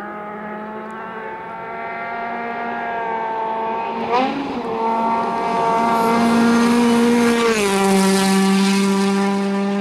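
Citroën DS3 rally car engine held at high revs on a gravel stage. The pitch jumps briefly about four seconds in, as the car lands a jump, and drops near the end as the car passes close by.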